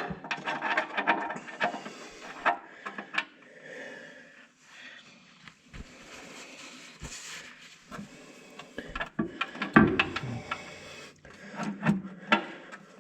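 Hand work on metal parts: irregular clicks, taps and scraping as the pins that hold the hydraulic pump up are fitted into the tractor's housing, with a louder knock about ten seconds in.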